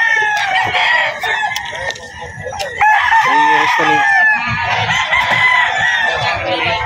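Several gamecocks crowing, one call overlapping the next so there is hardly a break.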